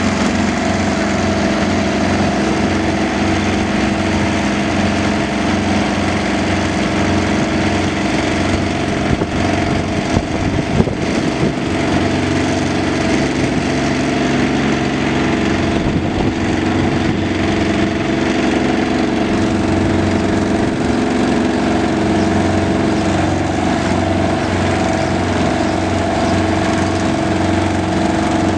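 Engine of road-works machinery running steadily at a constant speed, with a short stretch of clattering about ten seconds in.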